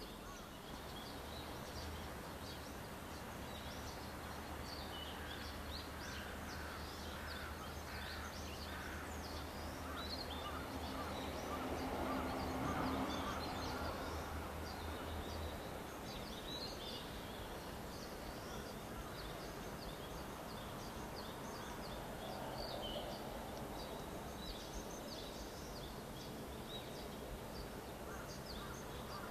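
Small birds chirping over and over, short high calls throughout. Underneath runs a low steady hum that stops about halfway through.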